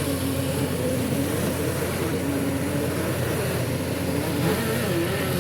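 Heavy vehicle engine running steadily, its pitch rising and falling slightly.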